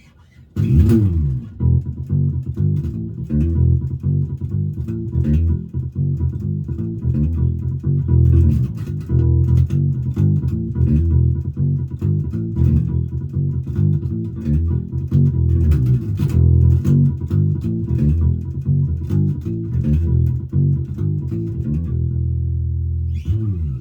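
Five-string Hammer mini electric bass played through a small Warwick BC10 bass combo amp: a busy run of plucked bass notes with sharp attacks, starting about half a second in with a quick slide down in pitch.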